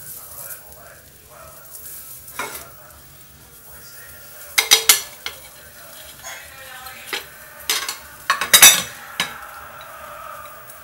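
Freshly popped popcorn being tipped out of a metal pot: the popcorn rustles while the pot clanks and knocks against the dish, with a loud cluster of knocks about halfway through and another near the end.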